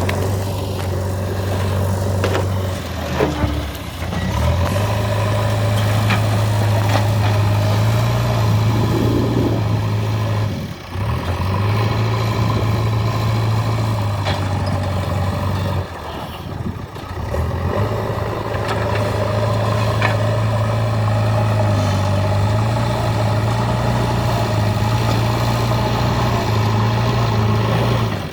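JCB 3DX Eco Xcellence backhoe loader's diesel engine running steadily while working, its low hum shifting in level several times, with brief dips about 11 and 16 seconds in.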